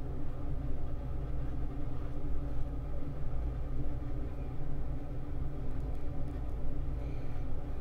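A steady low rumble with a constant hum.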